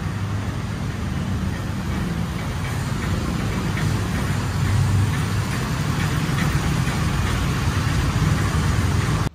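Motorcycle, scooter and small-vehicle engines idling and creeping in a traffic jam inside a narrow roofed underpass, making a steady, dense engine drone.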